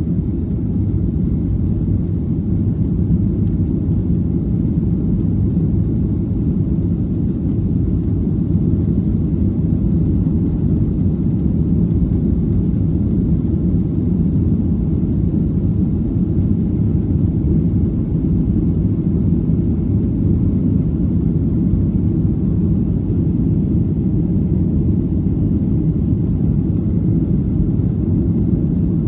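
Steady low rumble of cabin noise inside a Boeing 737-700: the CFM56-7B engines and airflow heard through the fuselage, with no changes or distinct events.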